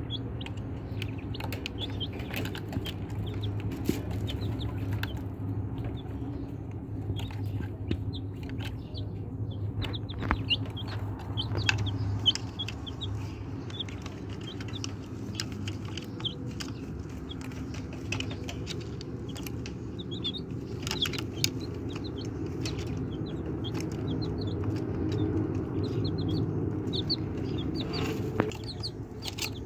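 Baby chicks peeping in short high chirps while pecking feed from a plastic toy truck's cab, with scattered sharp taps, over a steady low hum.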